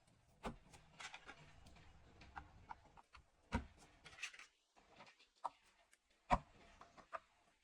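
Faint handling sounds of hardware being assembled: scattered sharp clicks and taps, the loudest about three and a half and six seconds in, with soft rubbing between.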